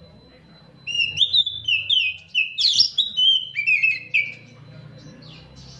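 Oriental magpie-robin (kacer) singing a fast run of loud, clear whistled notes that slide up and down in pitch, starting about a second in and stopping after about four seconds.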